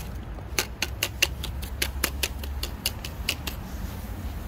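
A quick run of sharp, crisp crunching clicks, about five a second for some three seconds, as cold snow is scooped and squeezed in a plastic snow-duck mold.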